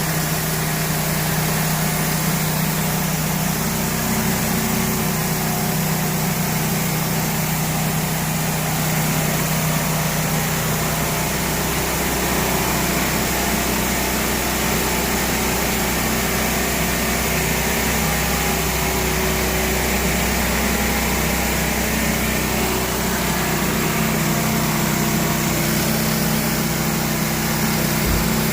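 4400 psi pressure washer engine running steadily under load, with a continuous hiss of high-pressure water spraying from a 24-inch surface cleaner.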